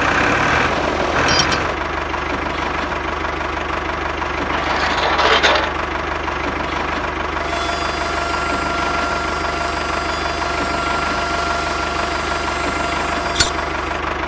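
Tractor engine running steadily. A thin, steady whine joins about halfway through, and both cut off sharply at the end.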